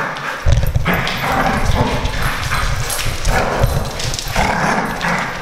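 Two dogs play-fighting, growling and making a lot of rough noise. The vet judges it aggressive play and not a real fight.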